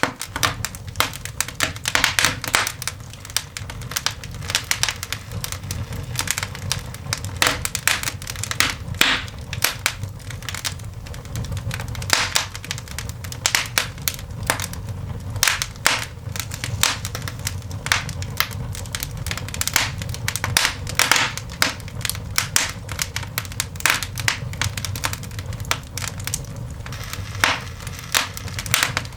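Newly lit coal fire in a cast iron dog grate crackling and popping irregularly, many sharp snaps a second, over a steady low rumble of the flames.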